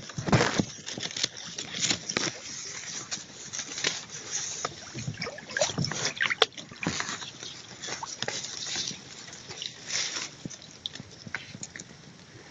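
Leaves and thin dry stems rustling and crackling in irregular bursts as someone pushes through dense undergrowth, with foliage brushing directly against the camera microphone. The loudest brushing is right at the start.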